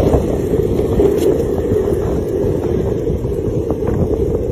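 Steady low rushing rumble of wind buffeting the microphone while moving quickly along a road behind a running dog.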